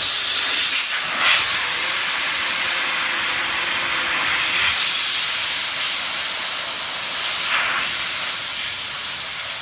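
Compressed air blasting out of an opened drain valve on a truck air-brake tank: a loud, steady hiss that starts suddenly and tails off near the end. The tank is being drained to check whether the air compressor is passing oil.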